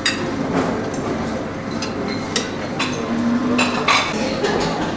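Irregular sharp clinks and knocks, about ten in five seconds, over a steady background din.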